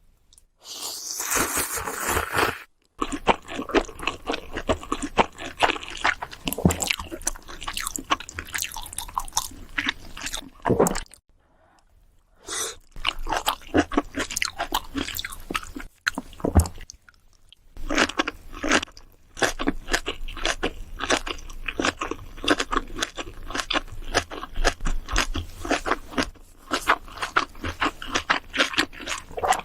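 Close-miked mukbang eating sounds: wet chewing and crunching of pork kimchi stew with ramen noodles and rice leaf wraps. There is a loud burst about a second in, then rapid, steady chewing with two brief pauses around the middle.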